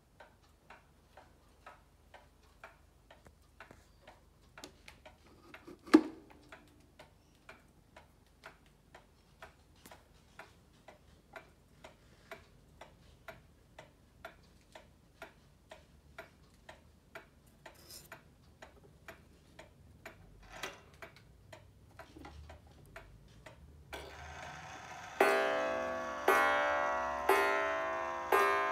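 Antique Meiji pendulum wall clock ticking about twice a second, with one sharp louder click about six seconds in. Near the end the strike train whirs into motion and the clock begins striking the hour with its hands at twelve: loud ringing strikes about once a second.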